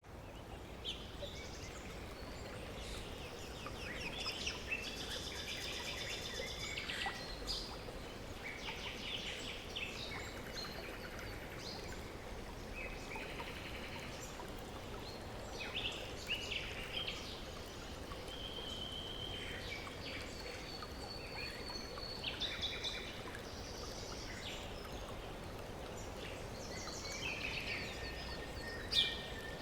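Birds chirping and calling in bursts, with trills and whistled notes, over a steady wash of flowing water.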